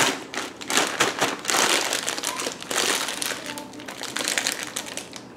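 A thin plastic bag being crumpled and folded in the hands: dense, crackly crinkling, loudest in the first three seconds and then thinning out.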